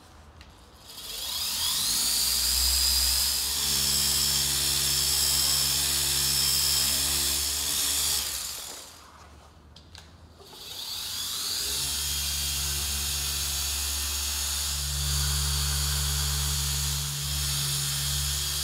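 Small Rupes mini polisher run twice on a car's paint: each time it speeds up with a rising whine, runs steadily for about seven seconds, then stops. The first run is the cutting step with a microfiber pad; the second, after a short pause, is the refining step with a yellow foam pad.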